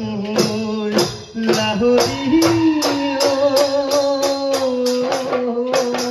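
Live Bihu music: several dhol drums beaten in a fast, driving rhythm, with sharp strokes about three a second, over a long held melody note that steps in pitch a few times.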